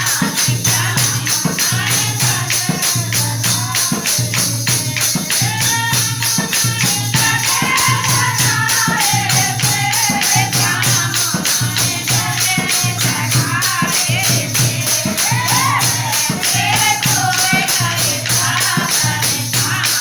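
Indian devotional bhajan: a singing voice over jingling percussion that keeps a fast, steady beat.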